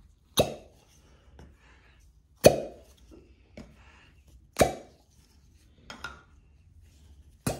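Cupping suction cups popping as their seal on the skin is broken: five sharp pops about every two seconds, the middle ones loudest.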